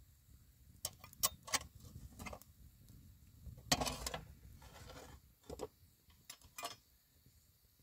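A metal spatula clicking and scraping against a domed iron griddle as a flatbread is loosened and turned over a wood fire. There are sharp separate ticks, with a longer, louder scrape about four seconds in as the bread is lifted.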